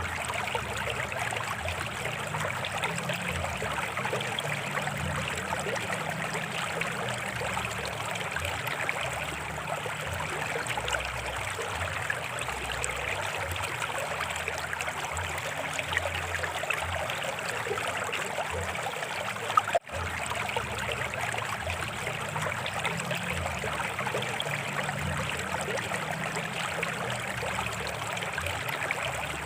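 A stream flowing steadily over rocks, an even babbling rush of water, with a brief dropout and click about twenty seconds in.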